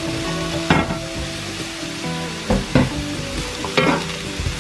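Diced eggplant sizzling in olive oil in a nonstick frying pan, stirred with a wooden spoon that gives a few sharp knocks and scrapes against the pan.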